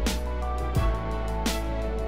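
Instrumental background music: held notes over a steady drum beat, about one beat every three-quarters of a second.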